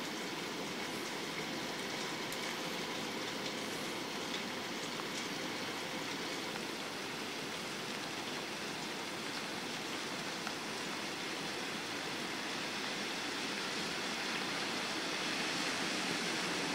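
Steady, even hiss of falling rain, getting slightly louder near the end.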